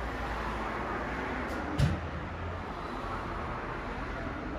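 Steady outdoor background noise, a low rumble under a hiss, with one sharp knock a little under two seconds in.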